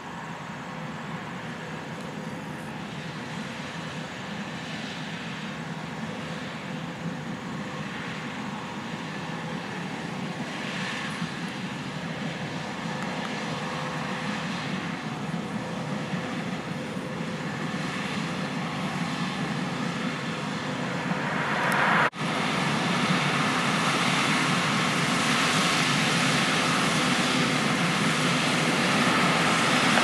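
A Case IH 6130 Axial-Flow combine running while harvesting soybeans: a steady engine and machine drone that grows louder as the combine approaches. About three-quarters of the way through it drops out for an instant, then carries on louder and with more hiss.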